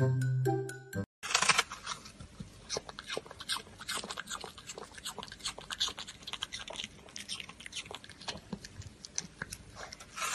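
Puppy crunching and chewing on a whole red apple: many quick, irregular crunching bites. The first second is a few musical tones.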